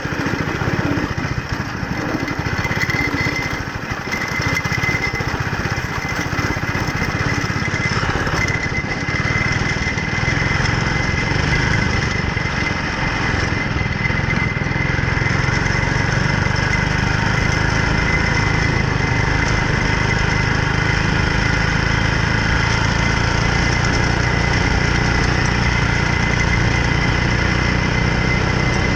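Small gasoline go-kart engine running continuously. It is somewhat uneven for the first several seconds, then settles into a steady run.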